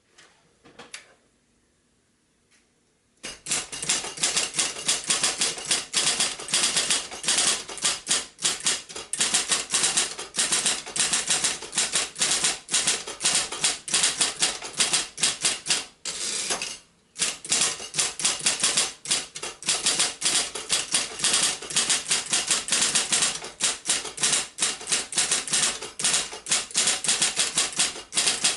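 1972 Royal Apollo 10-GT electric typewriter (built by Silver-Seiko) typing at speed: rapid, continuous key strikes of elite type, with one brief pause midway. The first few seconds are nearly quiet before the typing begins.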